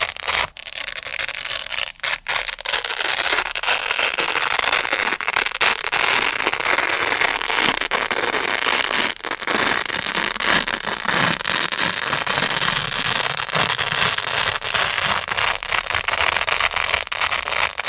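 Grey Velcro (hook-and-loop) pad worked close to the microphone, giving a continuous crunchy, scratchy crackle, with brief breaks about half a second in, two seconds in and nine seconds in.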